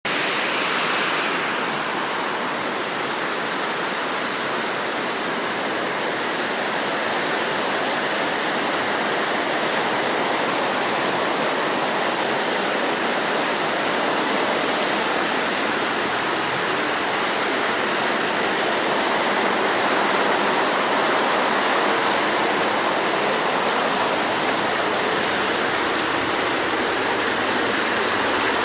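Water rushing steadily out of an unplugged drain and pouring down into a ditch.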